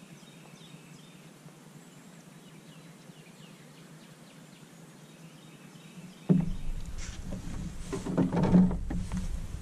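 Quiet outdoor ambience over open water with a few faint bird calls, then about six seconds in a sudden low rumble with a few knocks and rustles, like wind on the microphone and someone handling gear in a small boat.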